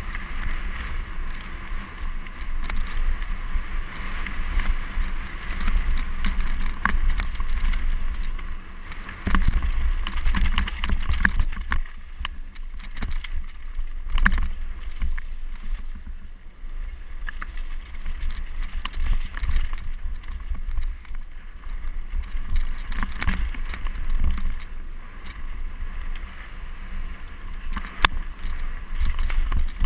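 Mountain bike riding fast over loose stony singletrack: wind buffeting the GoPro HD Hero's microphone and tyres rumbling on gravel, with frequent sharp knocks and rattles as the bike hits rocks.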